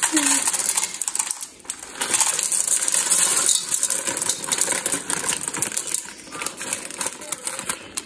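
Dry macaroni poured into a pot: a dense, continuous rattle of hard pasta pieces hitting the pan and each other, with a brief lull about a second and a half in.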